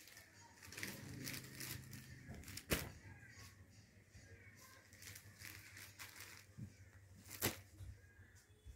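Faint rustling and crinkling of folded suit fabric being handled and shifted, with a sharp tap about a third of the way through and another near the end.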